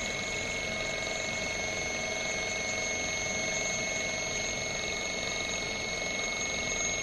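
DC servo trainer running: a steady whine made of several unchanging high tones over a constant hum, from the DC motor and its drive electronics.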